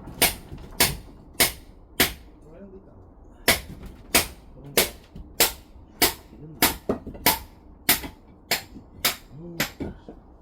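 Firewood being chopped into small kindling pieces: a steady series of about sixteen sharp cracking strikes, roughly one every half second or so, with a short pause about two seconds in.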